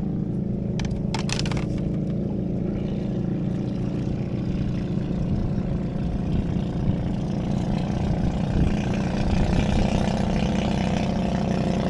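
An engine running steadily with an even hum, and a few sharp clicks about a second in.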